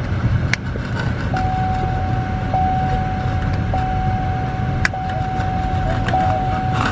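Car cabin noise while driving: a steady low road rumble. About a second in, a steady electronic warning tone starts and keeps sounding, with a slight break roughly every second.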